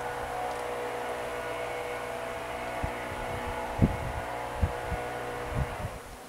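Honeybees buzzing around the hive, a steady hum with several pitches held together. A few low thumps come in the second half, and the buzz falls off just before the end.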